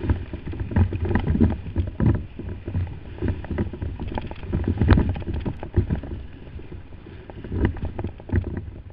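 Kayak riding through breaking surf: water rushing and splashing around the hull, with irregular thumps and knocks as waves and paddle strokes hit the boat.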